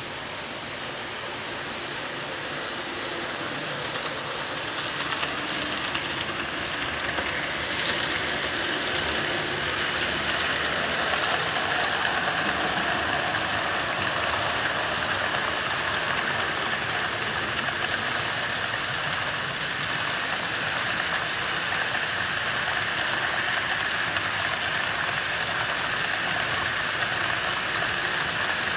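Model freight train rolling past on layout track: a steady rushing rumble of wheels on rail that builds over the first several seconds as the cars come by, then holds steady.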